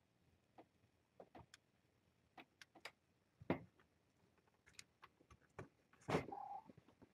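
Faint scattered ticks and soft rustles of young kittens moving about on a towel, with a short kitten mew a little after six seconds in.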